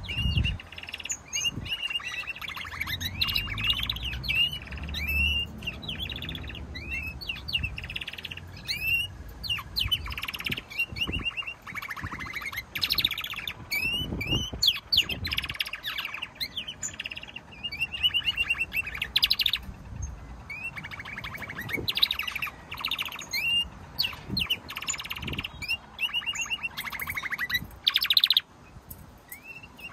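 Domestic canaries singing: a continuous song of sweeping whistled notes and fast rolling trills.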